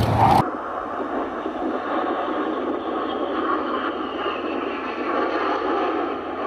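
Steady rushing jet noise of Hawk trainer jets flying overhead, heard through a thin, tinny amateur recording. The sound changes abruptly about half a second in, where the footage switches recordings.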